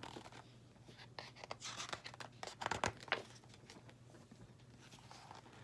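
Paper rustling and handling as a picture book's pages are turned, in a cluster of short scratchy strokes.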